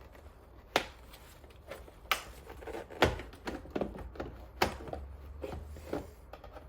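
Sharp clicks and knocks of the Mini R56's plastic rear light cluster being pushed and worked free of the body, the loudest four about a second apart with lighter taps between.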